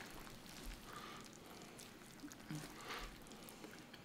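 Quiet, faint wet squishing and small clicks of a flour tortilla scooping melted cheese and meat out of a skillet.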